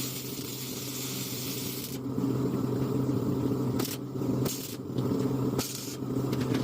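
An engine running steadily at a constant speed. Bursts of hiss start and stop abruptly over it, one in the first two seconds and several short ones near the end.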